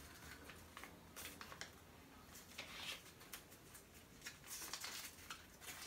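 Faint crinkling and rustling of a small folded paper slip being unfolded by hand, in scattered light ticks.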